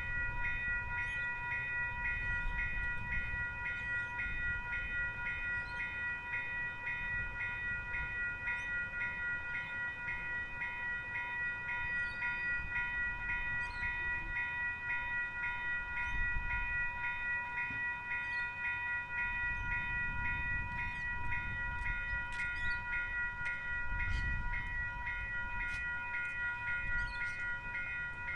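Electronic level crossing bells dinging in a fast, unbroken repetition while the crossing is closed for a tram. A low rumble from the approaching tram comes and goes underneath.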